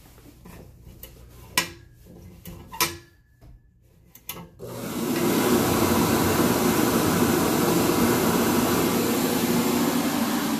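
A few sharp clicks, then about halfway in a wall-mounted electric warm-air hand dryer starts up and blows steadily and loudly.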